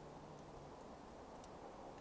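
Smouldering coals giving a faint, even hiss with two tiny crackling ticks, the second about halfway through.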